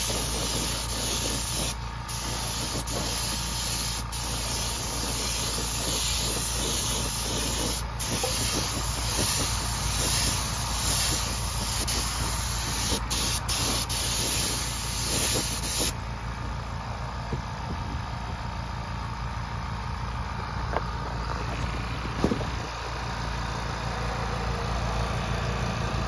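Air-fed paint spray gun hissing as it sprays, with a few brief breaks where the trigger is let off, and stopping about two-thirds of the way through. A Fortress Ultra Quiet air compressor runs steadily underneath throughout.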